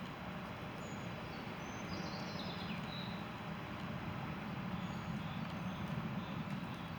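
Steady low outdoor rumble, with a few faint, short, high bird chirps about one to three seconds in and again around five seconds.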